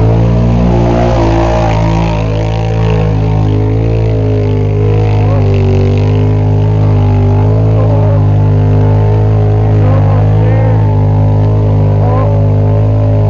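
Loud engine running hard at steady high revs, its pitch wavering slightly.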